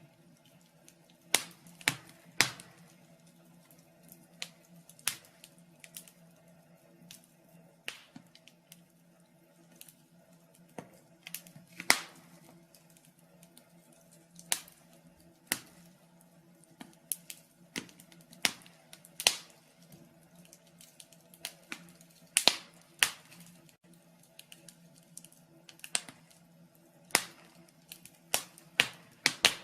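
Wood fire crackling in a fireplace: irregular sharp pops and snaps, some loud and some faint, over a faint steady hum.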